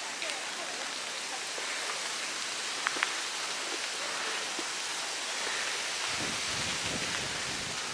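Steady hiss of rain falling on the forest canopy, with a few sharp drip ticks about three seconds in. A low rumble comes in at about six seconds and stops shortly before the end.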